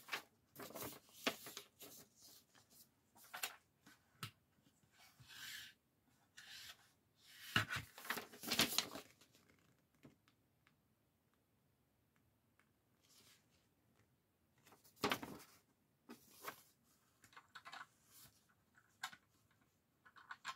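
Faint, scattered handling sounds: a plastic toy playset being moved and a paper instruction sheet rustling, with a louder run of rustles about eight seconds in and a sharp one near fifteen seconds.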